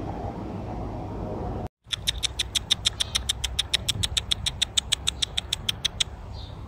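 A person making a fast, even run of kissing clicks with the lips to call cats, about eight a second for some four seconds, then stopping abruptly. Before it, a steady low background rumble.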